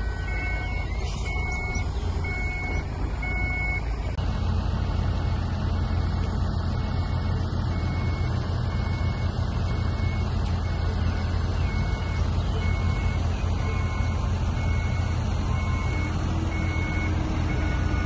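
Heavy diesel engines of dump trucks and a bulldozer running in a steady low rumble. A reversing alarm beeps in a regular series, a little under a second apart, for the first few seconds, stops, and starts again in the last few seconds.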